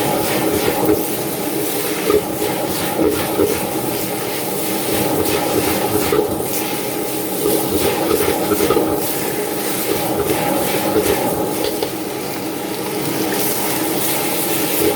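A commercial wok range burner running with a steady, loud rushing noise while liquid in the wok bubbles and hisses, with a few light clanks of a ladle on the wok.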